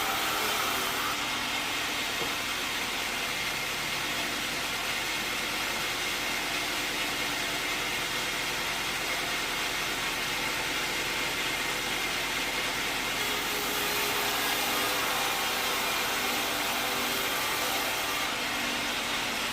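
Sawmill machinery running steadily with a constant motor hum and hiss.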